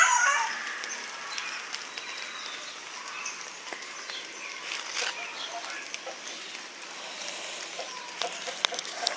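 Steady rain falling, with light drips and chickens clucking faintly in the background. A high call fades out in the first half second.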